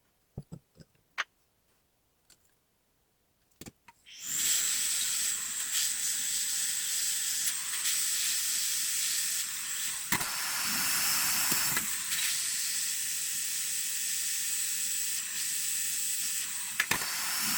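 A few light clicks, then about four seconds in a hot air gun starts blowing: a steady hiss with a thin high whine, heating soldering paste on a silver chain joint.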